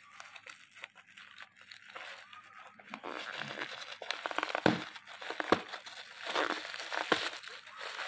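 Black plastic courier mailer bag crinkling and tearing as it is torn open by hand. Faint at first, it gets louder from about three seconds in, with sharp crackles.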